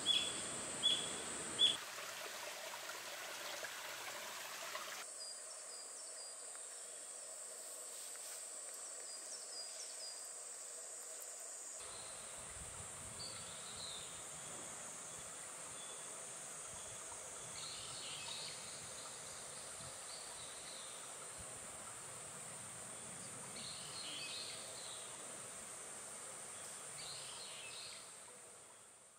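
Summer forest ambience: insects droning steadily at a high pitch, with a quick run of short bird chirps at the start and a few scattered bird calls later. A soft outdoor hiss lies beneath, and everything fades out at the end.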